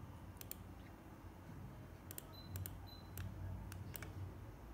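Computer mouse buttons clicking: a scattering of faint, sharp clicks, several in quick pairs, over a faint low hum.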